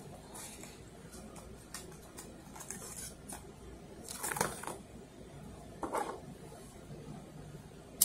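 Handling a cardboard cigarette pack: a cigarette is pulled out, with light taps and clicks and two short rustles about four and six seconds in. A sharp click right at the end as a lighter is struck.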